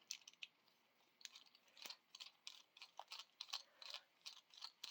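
Faint, uneven small clicks and taps of a resin spin stick and acrylic bead being handled while the bead is swapped.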